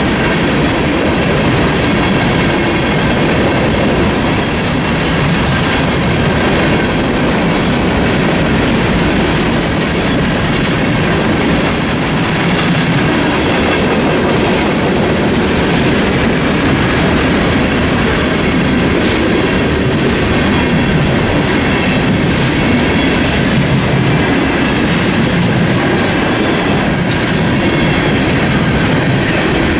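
Cars of a mixed freight train (covered hoppers, flatcars, boxcars) rolling steadily past, wheels clicking over the rail joints with a continuous rumble and a little wheel squeal.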